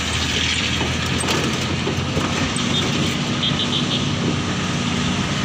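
Bus engine running steadily under a constant rush of wind and road noise, heard from the bus's open roof while it drives. A few short high beeps sound about three and a half seconds in.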